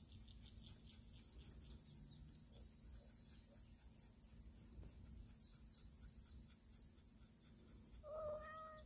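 Faint, steady high-pitched chirring of crickets, continuous throughout.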